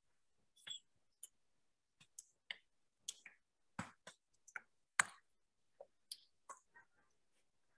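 Irregular light clicks and taps, about twenty, uneven in spacing, made while handwriting is being put onto a digital whiteboard. The loudest tap comes about five seconds in.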